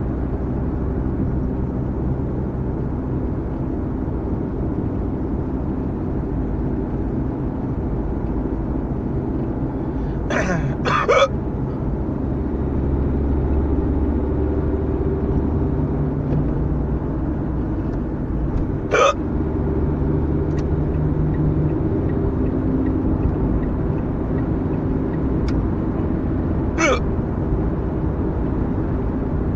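A person hiccupping four times, two in quick succession about a third of the way in, then single hiccups well apart near the middle and near the end. Under them runs the steady engine and road rumble of a moving car, heard from inside it.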